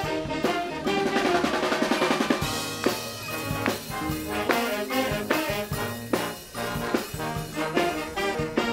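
Brass band music. About a second in, a fast snare drum roll runs for a second and a half, and then the band plays on with brass over a steady drum beat.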